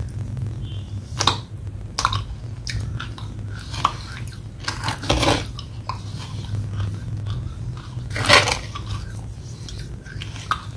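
Close-up chewing of a mouthful of wet red clay paste, with a few short sharp mouth clicks; the loudest comes about eight seconds in. A metal spoon scrapes in the plastic tub, over a low steady hum.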